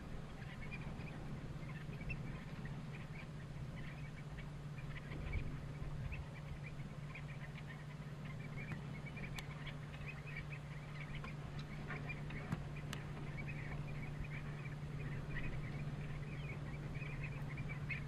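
A feeding flock of common redshanks giving many short, soft calls, scattered and overlapping throughout, over a steady low hum.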